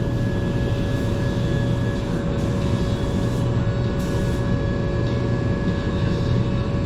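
Paint-shop machinery running with a steady low drone and a fixed hum tone. Over it come two short hisses of air from a paint spray gun, about two and a half and four seconds in.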